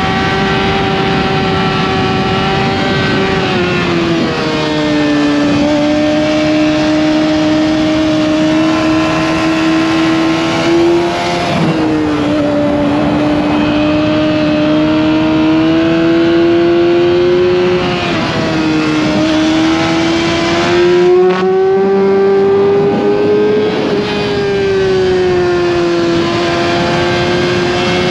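Motorcycle engine running under way over a steady rushing noise. Its pitch drops sharply three times, about four, eleven and a half and eighteen seconds in, climbing slowly again after each drop, then rises and falls once more near the end.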